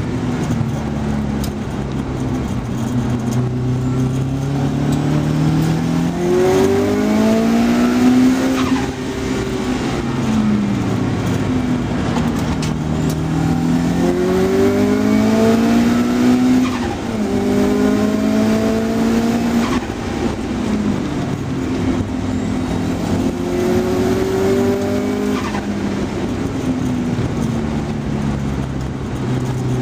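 Car engine driven hard on a race circuit, heard from inside the cabin. The engine note climbs under acceleration and drops sharply at each gear change, several times over, with lower, steadier stretches between.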